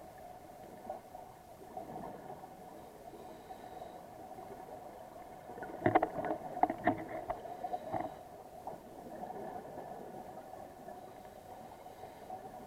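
Steady drone of a boat engine, with a short cluster of bubbling gushes about six seconds in lasting some two seconds.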